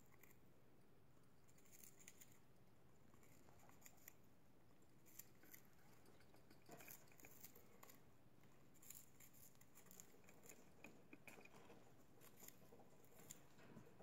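Budgerigars chewing and picking at balsa wood: faint, irregular little clicks and crunches of the soft wood being bitten and splintered.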